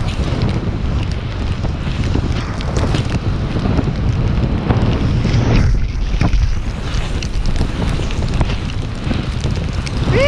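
Wind rushing over an action-camera microphone as a snowboard rides fast through deep powder snow, with a heavier low surge about six seconds in as the rider is engulfed in a spray of powder.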